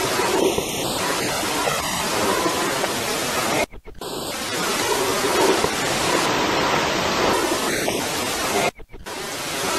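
Loud, even hiss of a heavily amplified night-time field recording, the background noise boosted to bring out faint footsteps. It cuts out briefly twice, about four and nine seconds in.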